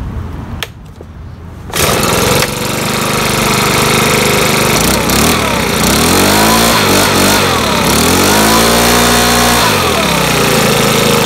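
Makita BHX2500CA four-stroke leaf blower engine pull-started without priming, catching about two seconds in and running. In the middle it is revved up and down twice, the pitch rising and falling, then it settles back to a steady idle.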